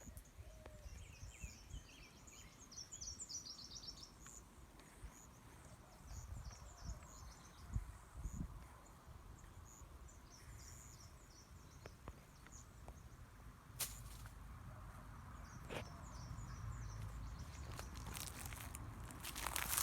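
Faint outdoor ambience: small birds chirping and chattering on and off, over a low wind rumble. A dense burst of crackling and rustling starts near the end.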